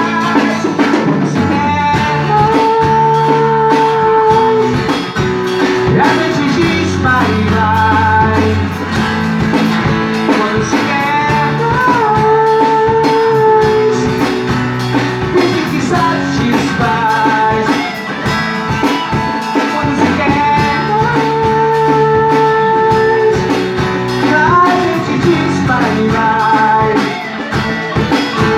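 Pop-rock band music in an instrumental passage between sung verses: a lead melody of long held notes, some bending in pitch, over bass guitar and drums.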